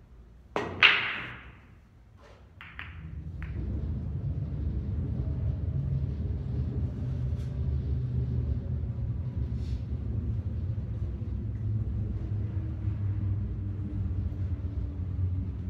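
Pool break shot: a sharp click of the cue tip on the cue ball, then the cue ball crashes into the racked balls with a loud clack and rattle, followed by a few scattered clicks of balls striking each other. After that a steady low rumble carries on underneath.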